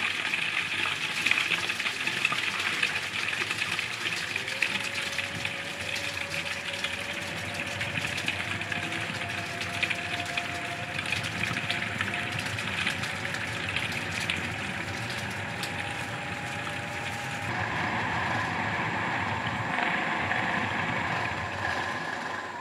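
Bowl cutter running, its knives chopping beef and ice into Brühwurst sausage batter: a steady whirring, churning noise. Near the end the sound shifts in tone as the batter keeps turning.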